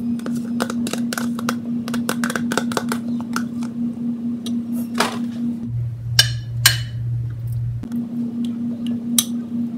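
A spoon knocking and scraping against a bowl as a thick soup and sour-cream mixture is spooned out over chicken in a crockpot, with a couple of ringing clinks past the middle. A steady low hum runs underneath and drops in pitch for about two seconds just past the middle.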